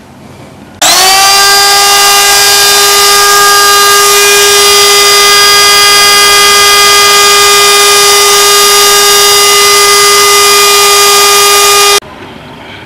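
Vintage Black & Decker router's electric motor switched on, whining up to speed in a fraction of a second about a second in. It then runs loud and steady at a high pitch for about eleven seconds and stops abruptly near the end.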